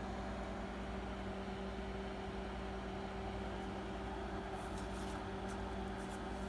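Microwave oven running with a steady hum while heating a bag of microwave popcorn. A few faint ticks come after the midpoint.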